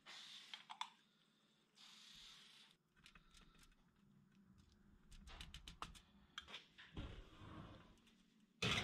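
Quiet kitchen handling sounds: soft scraping as a spoon spreads thick marinade over ribs on a wire rack, and a few light clicks and knocks. Near the end there is a loud metallic clatter with a short ring as the baking tray and its rack go into the oven.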